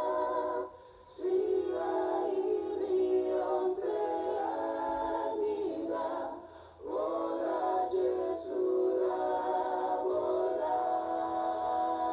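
An a cappella vocal group singing held chords, played back through a laptop's speakers. The singing breaks off briefly about a second in and again around six and a half seconds, then comes back in.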